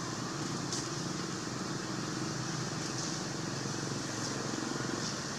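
Steady low hum of distant engine traffic under an even high hiss, with a few faint short high ticks.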